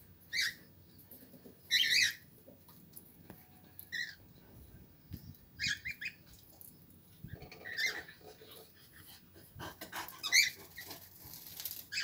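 Aviary birds calling: short, high-pitched chirps and squawks, about seven of them, at irregular intervals every second or two.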